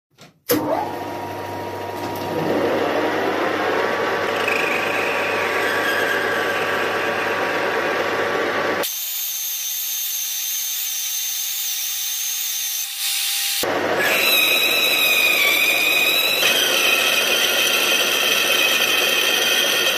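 Metal lathe running and turning a brass bar with a carbide insert tool, the cut giving a high whine over the hum of the machine. The lathe starts abruptly about half a second in, and the sound of the cut changes abruptly twice, about nine and fourteen seconds in.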